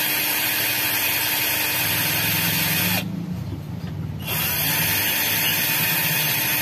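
Cordless drill running in two bursts of about three seconds with a short pause between them. Each burst is a steady motor whine that rises slightly as it spins up and drops as it stops. The bit is struggling to bore into the hard plywood board.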